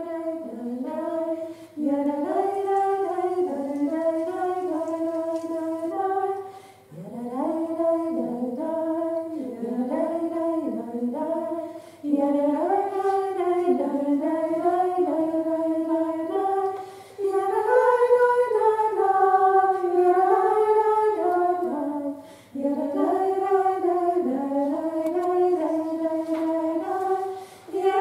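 A woman singing a melody unaccompanied, one voice in phrases of about five seconds with short breaks between them.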